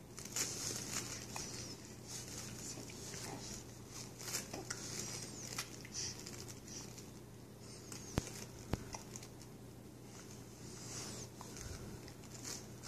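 Small animal munching banana: soft, wet chewing and smacking with irregular crackly clicks, and a few sharper ticks about eight seconds in.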